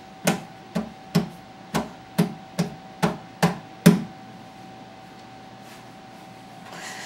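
Nine sharp knocks in quick succession, about two or three a second, that stop about four seconds in: a baby banging on a hard surface.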